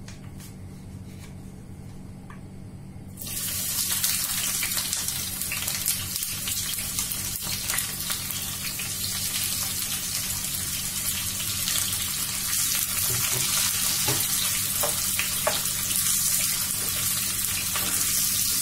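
Chopped red onions hitting hot oil in a nonstick frying pan: a sudden loud sizzle starts about three seconds in and carries on steadily as the onions fry. Light clicks and scrapes come through as they are stirred with a spatula.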